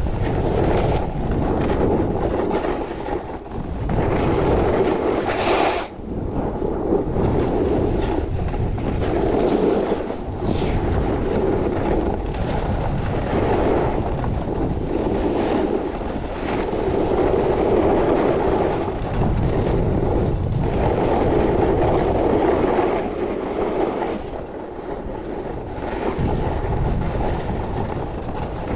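A snowboard scraping over packed snow during a run, the sound swelling and easing with each turn, with wind buffeting the microphone.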